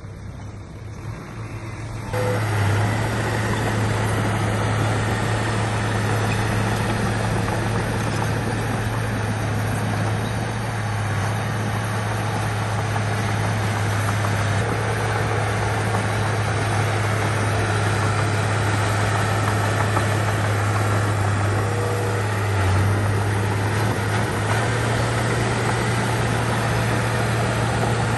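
Heavy-equipment diesel engine running steadily under load, with a deep, constant drone. It gets much louder about two seconds in.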